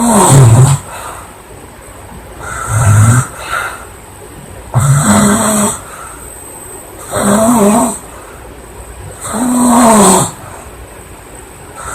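A girl snoring loudly, with five snores a little over two seconds apart.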